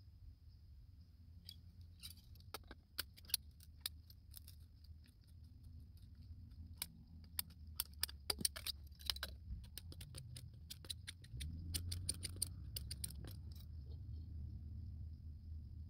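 Sharp, irregular clicks and snaps from hand-working a ratcheting PVC pipe cutter and PVC pipe, many coming in quick runs, over a low steady rumble.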